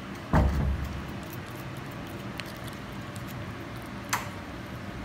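Handling noise and soft clicks as a cat eats a tuna treat from a hand-held packet. There is a dull thump about half a second in and a sharp click near the end, over a steady low hum.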